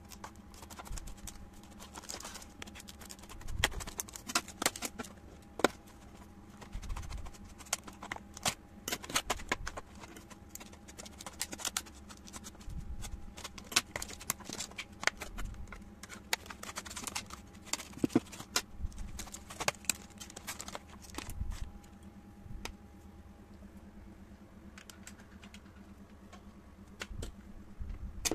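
Clear plastic blister packaging crackling and clicking as a manual staple gun is worked out of it by hand, with a few dull knocks of the tool against the table.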